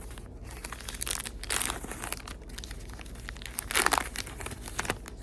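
A trading card pack's wrapper being torn open and crinkled by hand, in irregular crackling bursts, the loudest a little under four seconds in.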